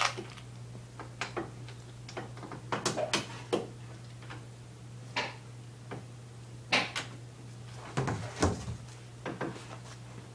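Scattered clicks, clacks and knocks of lawnmower parts being handled and fitted together during assembly, a few of them louder, over a steady low hum.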